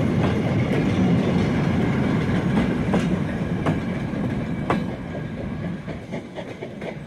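Wheels of a goods train's wagons and brake van rolling past on the track: a steady rumble with scattered sharp clicks. It fades away from about five seconds in as the brake van at the tail goes by.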